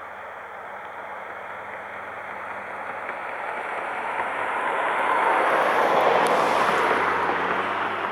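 A vehicle passing by: a steady rushing noise that swells to a peak about six seconds in and then fades.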